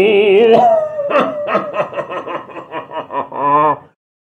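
A man's voice holding the tail of a long, wavering word, then breaking into laughter: a quick run of about a dozen short ha's ending in a longer last one. It cuts off suddenly near the end.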